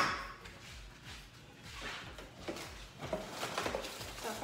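A sharp knock of an object set down on a kitchen counter, ringing briefly, followed by quieter handling sounds and a few faint pitched sounds near the end.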